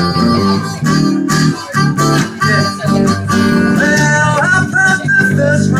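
A live band playing an instrumental break in a bluesy rock-and-roll number, with guitar to the fore over a bass line. Some notes in the lead line are bent partway through.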